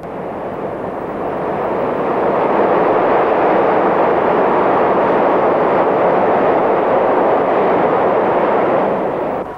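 Train crossing a high steel arch railway bridge: a steady rushing rumble that swells over the first couple of seconds and eases off near the end.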